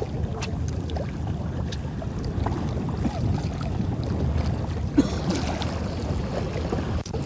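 Steady wind noise on the microphone over open sea water, with a few faint clicks and a brief knock about five seconds in.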